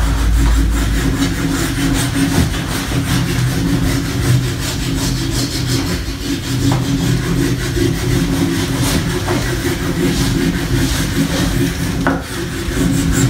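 Continuous dry rubbing as a Rex TK-72 compressed fluoro block is rubbed back and forth along a ski base, the first stage of applying the fluoro glide treatment.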